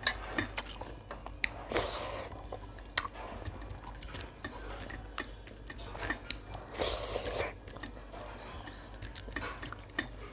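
Close-up mukbang eating sounds: chewing and biting, with many short sharp mouth clicks and a few longer wet, noisy bursts.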